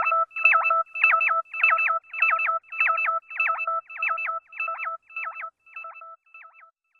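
Electronic beeping tone, a short chirping figure with quick pitch jumps, repeating about every 0.6 seconds and fading away like an echo tail at the end of the music.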